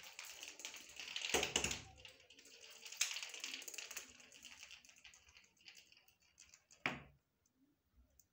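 A kitten's claws and paws skittering, tapping and scuffing on a hard terrazzo floor as it dashes and pounces after a string toy: a quick run of clicks and scrapes with a few louder scuffles, dying away after the last scuffle near the end.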